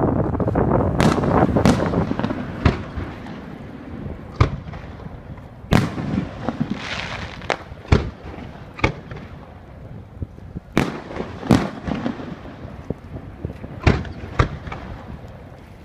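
Aerial firework shells bursting overhead: a string of sharp booms at uneven intervals, about a dozen in all, with a dense rushing noise that fades away over the first few seconds.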